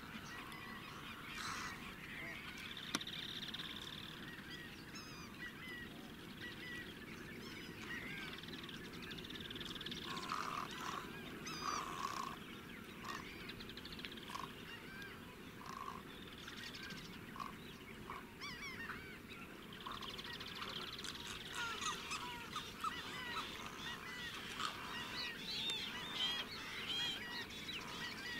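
Dawn chorus of many wetland birds calling at once over shallow water, with many overlapping chirps and whistles. About halfway through comes a run of short, lower calls repeated roughly once a second.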